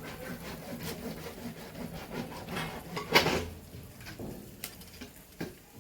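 Electrical insulating tape being pulled off the roll and wound around a joined wire: a run of small crackles and rasps, with one louder rasping pull about three seconds in.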